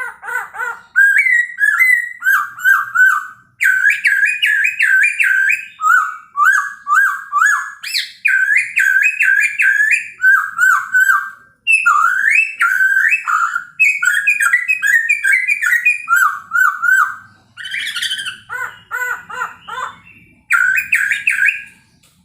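Chinese hwamei (Poksay Hongkong) singing a loud, varied morning song of rapidly repeated whistled phrases that change every second or two, with a brief pause near the end.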